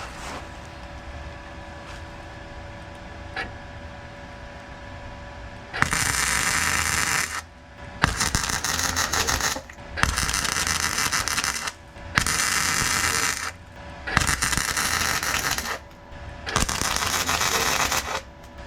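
MIG welder laying short stitch welds on a car's sheet-steel sill: six crackling bursts of about a second and a half each, starting about six seconds in, each switching on and off abruptly. Before them only a faint steady hum.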